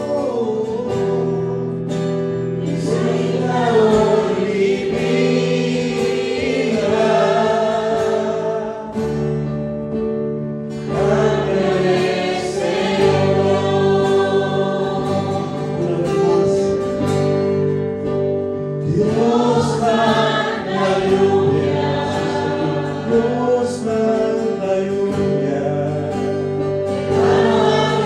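A choir singing a Spanish-language Christian worship song over instrumental accompaniment, in phrases with short breaks between lines.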